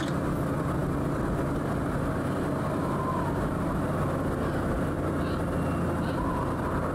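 A truck's engine running at a steady cruise as it drives along a road, a low drone that holds one pitch throughout.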